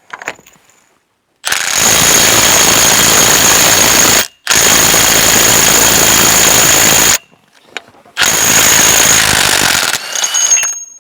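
Impact wrench hammering in three long bursts of two to three seconds each, loosening the front CV axle's hub nut on a truck.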